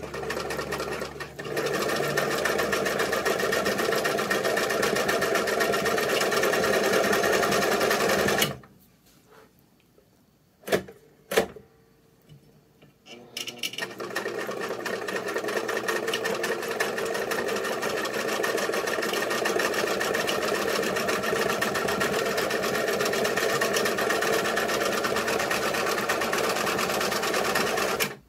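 Vintage Baby Lock Companion 722 sewing machine running steadily as it stitches fabric. It stops partway through, two sharp clicks come in the pause, then it starts again and runs steadily until it stops near the end.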